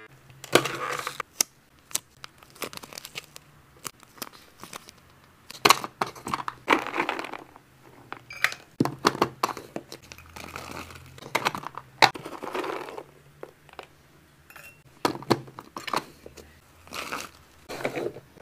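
Cat-snack packaging being handled and opened: irregular crinkling and tearing, with sharp clicks and taps in between.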